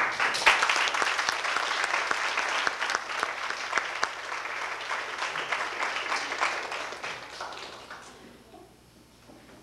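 Audience applauding, a dense clatter of many hands that dies away over the last couple of seconds.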